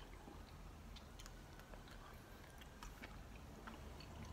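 Faint chewing of a soft fruit lolly, with scattered small mouth clicks over quiet room tone.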